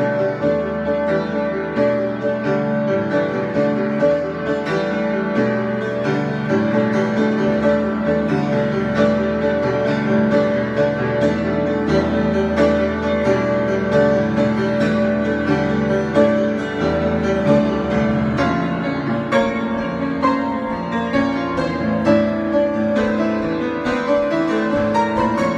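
Improvised instrumental music: many overlapping held notes over a steady low drone, with new notes struck every moment or so.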